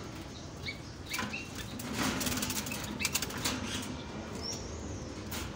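A dove flapping its wings inside a wire cage while being handled, with a rapid flurry of wingbeats about two seconds in and a few lighter flutters and knocks after.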